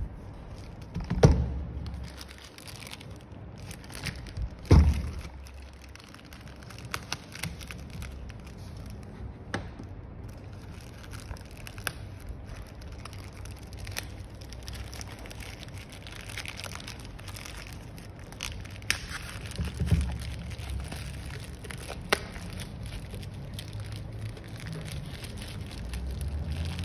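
Plastic courier mailer bag crinkling as it is handled, with scattered clicks and a few heavier knocks, the loudest about a second in and nearly five seconds in, another near twenty seconds.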